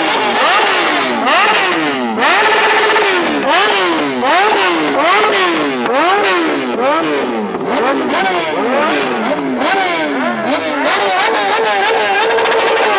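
Superbike engines revved over and over, the exhaust note climbing and dropping in quick throttle blips, with more than one engine's blips overlapping. Near the end the revs settle into faster, shallower blips.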